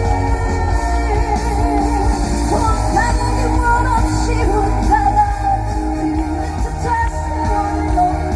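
A woman singing a trot song live over a loud backing track with strong bass, amplified through a concert sound system.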